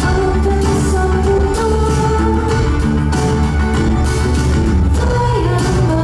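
Live band music at concert volume, with a strong steady bass, rhythmic drum and cymbal hits and sustained melodic lines, and a woman singing into a microphone.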